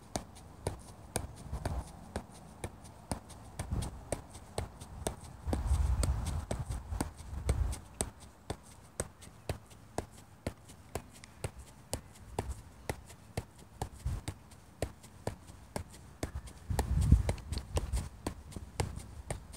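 A soccer ball being juggled: steady, even taps of foot on ball, about three a second, without a break. Two stretches of low rumble rise under the taps, about a third of the way in and again near the end.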